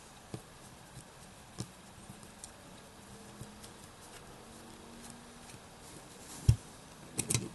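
Faint, scattered small clicks as a Torx T6 driver turns out a folding knife's pivot screw. One louder thump comes about six and a half seconds in, followed by a quick cluster of clicks near the end.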